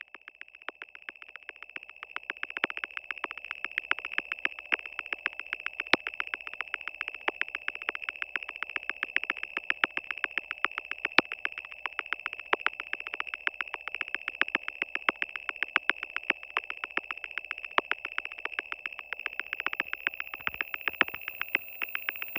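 Analog electronic sound: a steady high-pitched tone overlaid with rapid, uneven clicking, fading in over the first couple of seconds.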